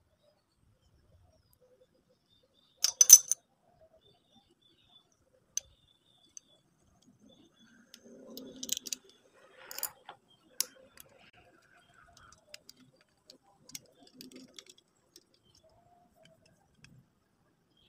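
Light clicks and taps of a small chainsaw diaphragm carburetor and its parts being handled. A sharp cluster of clicks comes about three seconds in, followed by scattered single ticks and faint rustling.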